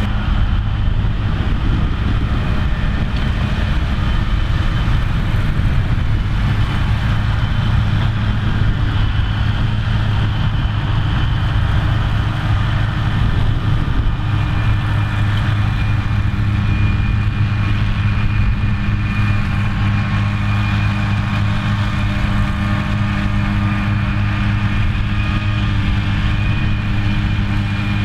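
Tractor diesel engine running steadily under load while pulling a round baler, its note shifting slightly about halfway through.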